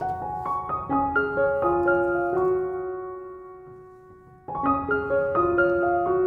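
Background piano music: a phrase of single notes struck in turn that dies away, then a new phrase starts about four and a half seconds in.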